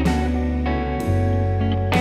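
Music with guitar: notes struck about once a second over a steady bass line.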